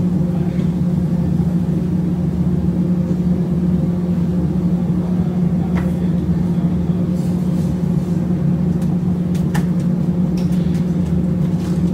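Steady, loud low hum of kitchen machinery running in a commercial kitchen, with a few light clicks in the second half.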